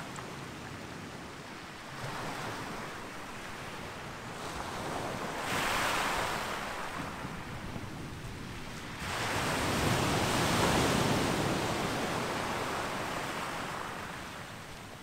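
Small sea waves breaking and washing up the beach at the water's edge, as a steady hiss that swells twice: once about five seconds in, and more strongly from about nine seconds in for a few seconds.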